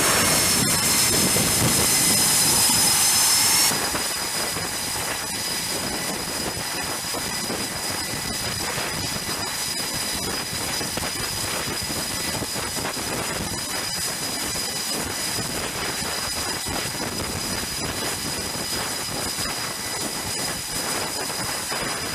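Jet aircraft engines running on a carrier flight deck: a steady rush of noise with a high turbine whine over it. About four seconds in, the sound drops abruptly to a quieter, steady engine noise with the whine still present.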